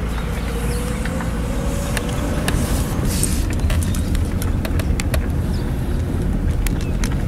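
Car engine and tyre noise heard from inside the cabin as the car rolls slowly: a steady low rumble, with a faint engine tone that rises gently in the first few seconds.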